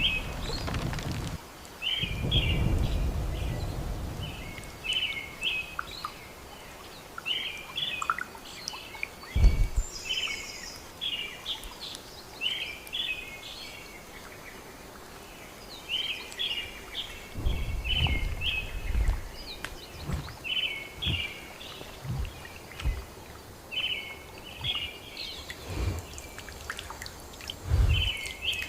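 A bird calling over and over in short, high chirping phrases, one every second or two, over an ambient background with a few low rumbles.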